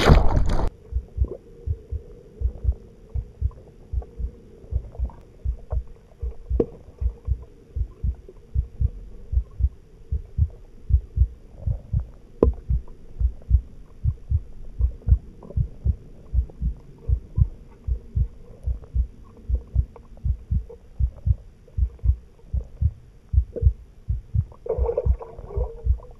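Low, dull thumps repeating steadily about two to three times a second, like a heartbeat, over a faint steady hum. Near the end comes a brief burst of higher, bubbly noise.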